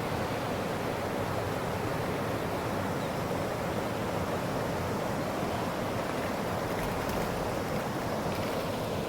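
Creek water flowing steadily, a constant even hiss with no breaks.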